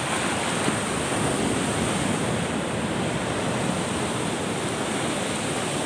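Sea surf breaking and washing up the sand: a steady rush of waves and foam.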